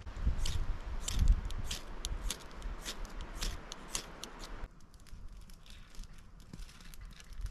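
Ferro rod being struck over tinder in a stone fire ring: sharp, high scrapes about two a second, with some low handling knocks. About two-thirds of the way in they stop suddenly, giving way to a small campfire crackling faintly.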